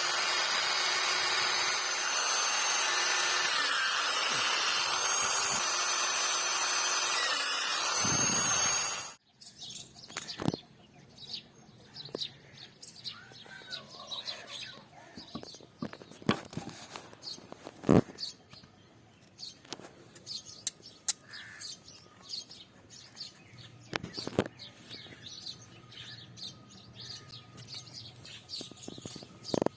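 Electric grinder running steadily on the steel blade, then switched off and winding down about eight to nine seconds in. After that come scattered sharp knocks and faint bird chirping.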